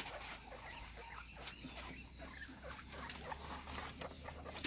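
Pet guinea pigs feeding on fresh corn cobs: faint, scattered small ticks and rustles.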